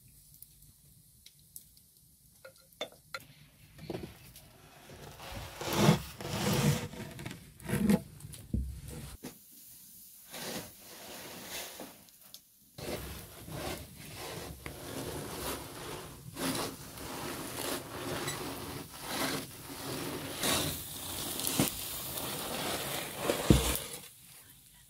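Scraping and rubbing of cooking utensils and wooden boards, with knocks, in irregular bursts. It starts with a few light clicks, turns busy after about four seconds, drops out briefly about halfway through, then runs as a denser stretch of scraping.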